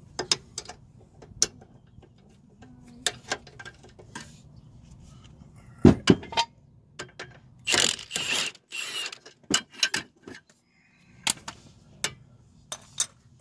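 Steel combination wrench clicking and clinking on the strut-to-knuckle bolts: a run of sharp, irregular metal clicks, with a louder knock about six seconds in and a scraping rattle a little later.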